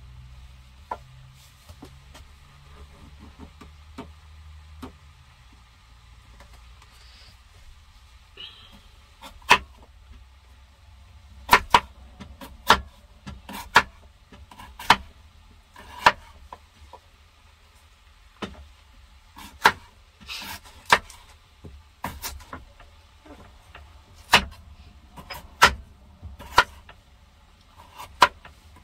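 Kitchen knife chopping unpeeled potatoes on a wooden cutting board: sharp, irregular knocks of the blade on the board, a few faint ones at first, then one or two a second from about a third of the way in, over a low steady hum.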